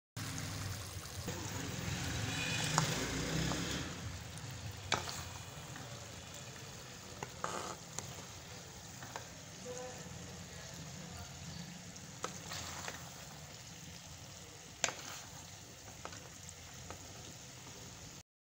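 Potato, pea and mogri (radish pod) sabzi sizzling in a cooking pot: a steady hiss, louder in the first few seconds, with a few sharp clinks of a serving bowl against the pot.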